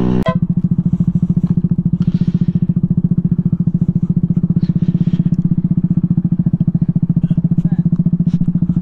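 Motorcycle engine idling with a steady, rapid, even pulse.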